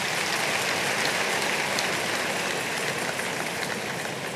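Large audience applauding, a steady clatter of many hands that eases slightly toward the end.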